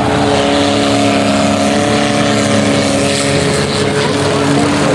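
Banger race car's engine held at steady high revs: a loud, even drone that dips slightly in pitch at first and then holds level.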